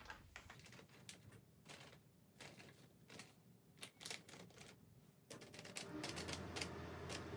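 Faint, irregular crinkling and rustling of plastic bags being handled: a piping bag, then a zip-lock bag opened and tipped over a metal mixing bowl.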